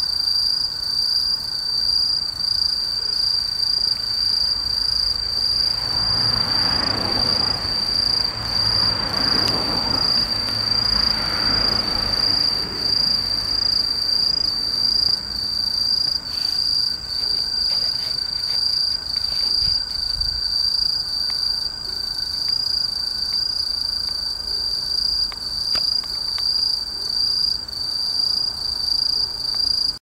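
Crickets trilling in a steady, unbroken high-pitched chorus. A soft rushing noise swells and fades between about six and thirteen seconds in.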